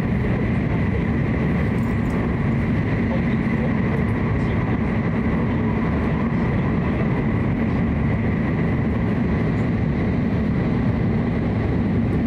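Steady running noise inside the passenger cabin of a Hokuriku Shinkansen train: an even low rumble and hiss with a faint, constant high tone above it.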